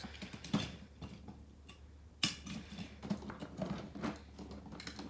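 Die-cast toy monster trucks clicking and clattering against one another and a plastic storage bin as they are handled: a run of light, irregular knocks, the loudest a little past two seconds in.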